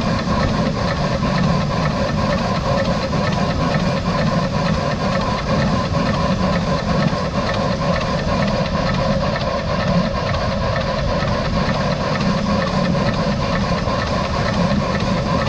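Steam locomotive No. 92.2271, a 1919 Krauss engine, running steadily along the line: a continuous rumble of the engine and wheels on the rails with a steam hiss over it.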